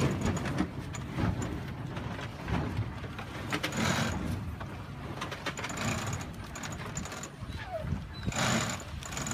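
Wind buffeting the microphone and water rushing past a small sailboat's hull as it comes through a power jibe, with unsteady gusts and faint indistinct voices.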